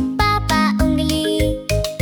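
Upbeat children's background music with a bouncy beat and a short melody.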